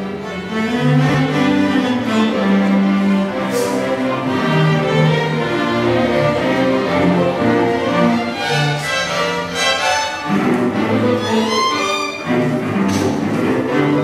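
School string orchestra playing, cellos and violins bowing together, with short breaks in the phrase about ten and twelve seconds in.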